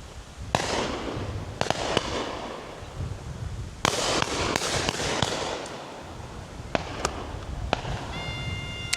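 Shotgun shots fired at driven pheasants, about nine bangs at uneven intervals, some close and loud, others fainter from guns further down the line, each trailing off in an echo. A steady high-pitched tone starts near the end.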